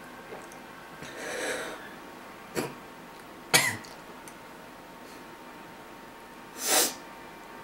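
A woman coughing and spluttering from the burn of swallowed Tabasco sauce: a long breathy exhale about a second in, two sharp coughs a little later (the second the loudest), and another forceful burst near the end.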